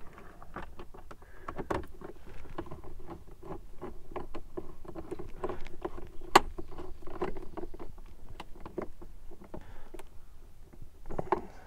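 A small cordless driver running in short bursts with a low hum as the 7 mm screws at the top of the truck's dash cluster trim are driven in, among scattered clicks and knocks of the socket and plastic trim.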